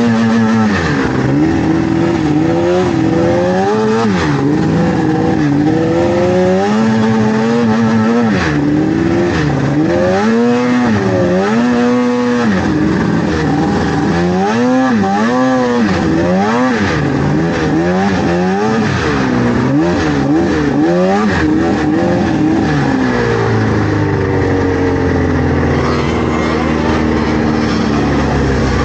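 Snowmobile engine running under the rider, its pitch rising and falling again and again as the throttle is worked on and off. It settles into a steadier, lower pitch for the last few seconds.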